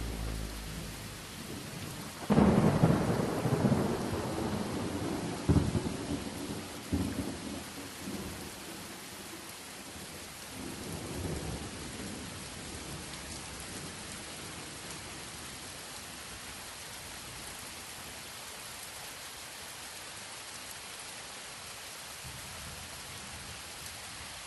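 Thunderstorm: a sudden thunderclap about two seconds in, then rumbling peals a few seconds apart that die away, over steady rain.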